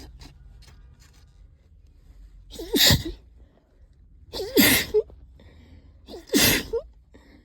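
A person sneezing three times in a row, about two seconds apart, each sneeze a short voiced intake of breath followed by a loud burst: an allergy sneezing fit.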